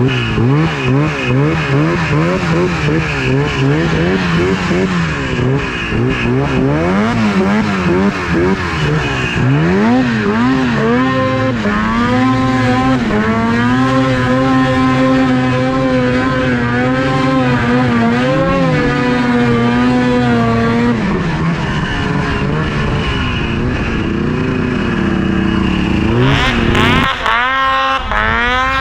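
Snowmobile engine running hard, its pitch swinging quickly up and down for the first ten seconds or so, then held high and fairly steady before dropping about twenty seconds in and shifting again near the end.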